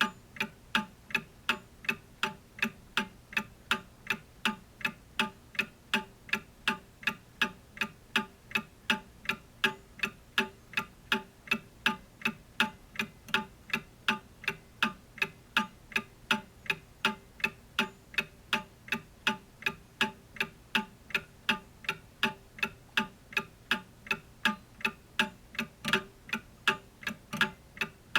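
Clock ticking steadily, with quick, evenly spaced ticks a few times a second.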